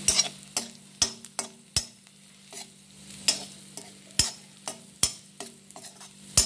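Perforated metal spatula scraping and clinking against a kadai as prawns are stir-fried: about two sharp strikes a second over a faint sizzle.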